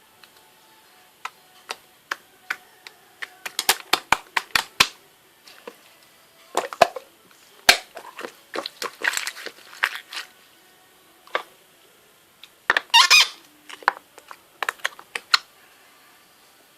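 Irregular sharp clicks and taps, with a few short stretches of crinkling, crackling rustle around the middle and about two-thirds of the way in.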